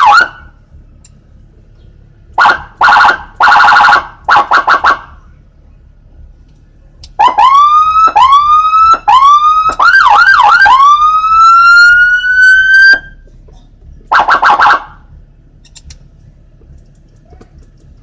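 Whelen electronic siren sounding in short bursts: several brief steady horn-like blasts, then a run of quick rising whoops, the last one climbing slowly for about two seconds before cutting off suddenly, then one more short blast.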